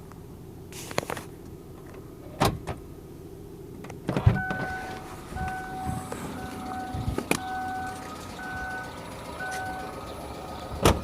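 Kia Spectra engine idling warm, with the steady hum broken by a few sharp, irregular clicks or knocks. The owner reports an extraneous knock in the engine. From about four seconds in, a two-tone warning chime beeps on and off repeatedly.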